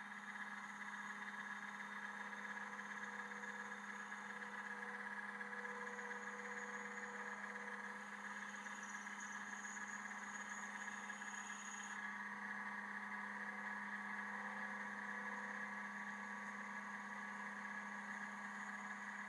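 Benchtop bandsaw running steadily with a low motor hum while its blade cuts through African mahogany. A higher hiss over it stops about twelve seconds in.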